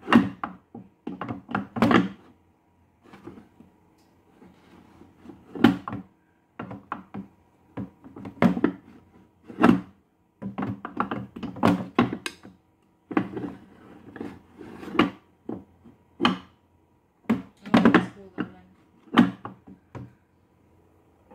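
Food scraps being dropped and pressed into the bucket of a countertop food-waste composter: a long run of irregular thunks and knocks. A faint steady hum lies underneath.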